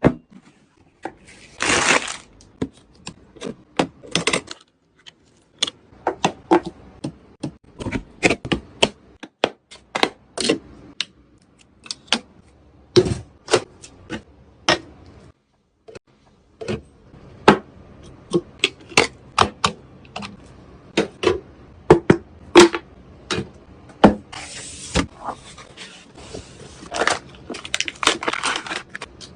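Computer parts being handled and fitted together during a PC build: an irregular run of sharp clicks, taps and plastic knocks, with a few short scraping noises.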